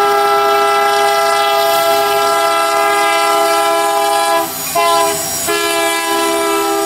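Multi-chime air horn on the lead locomotive, Union Pacific #2002, an EMD SD70ACe, held long and loud as the train approaches and passes. The horn breaks off briefly about four and a half seconds in and sounds again a second later, over the rumble of the passing train.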